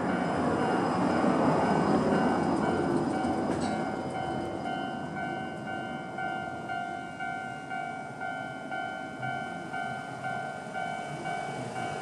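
Japanese railway crossing alarm of the old standard type, ringing a steady repeating electronic ding. Under it a Seibu 4000-series train rumbles over the crossing, loudest in the first few seconds and then easing off.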